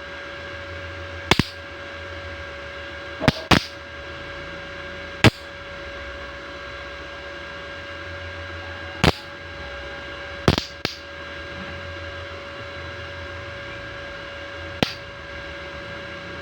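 Electric welding machine running with a steady hum and whine, broken by about eight sharp cracks at irregular intervals, some in quick pairs.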